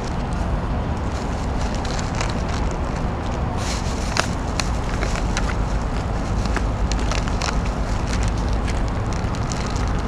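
Steady low rumbling outdoor background noise, with scattered small clicks and crackles, the densest cluster about four to five seconds in.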